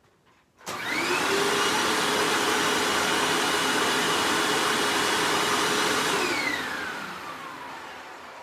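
Hoover WindTunnel bagged upright vacuum cleaner switched on under a second in, its motor spinning up with a rising whine and running steadily. It is switched off about six seconds in and winds down with a falling whine.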